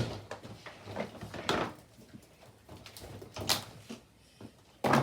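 Scattered soft clicks, taps and rustles of plastic and silicone fidget toys being handled and set down, with a few louder handling noises about a third of the way in, past the middle and near the end.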